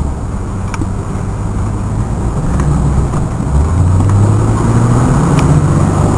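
Ford Thunderbird's engine pulling under acceleration, heard from inside the car with road noise, growing louder, its pitch stepping up about three and a half seconds in.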